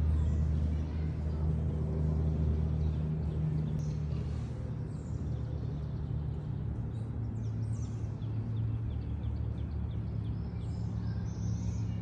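Outdoor ambience dominated by a steady low engine hum, a little quieter after the first few seconds, with faint short bird chirps in the second half.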